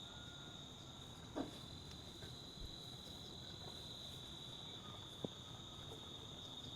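Insects chirring steadily at one high, unbroken pitch, faintly, with a couple of brief soft knocks, one about a second and a half in and one near five seconds.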